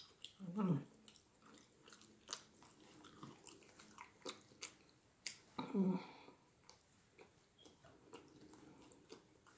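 Close-miked chewing and mouth smacking, with many short, sharp wet clicks. A short vocal hum falling in pitch comes twice, about half a second in and about six seconds in.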